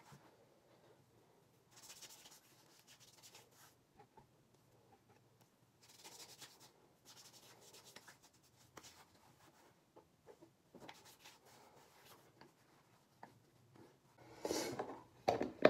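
Hands rubbing over the skin of the face and neck and against each other, a soft brushing that comes in short spells every few seconds. A louder rustle and a sharp knock come near the end.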